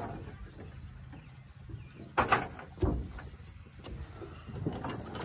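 A few sharp clinks and knocks of a steel tie-down chain and ratchet binder being handled on a wooden trailer deck, over a faint low rumble.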